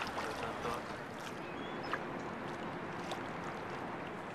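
Water lapping and splashing close by, with wind and a few light clicks; a faint steady hum joins about a second and a half in.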